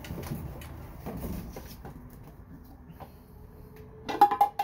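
Rustling as a vintage Rival crock pot is fetched and handled, then a quick clatter of several sharp knocks with a short ringing tone near the end as the crock pot and its lid are handled.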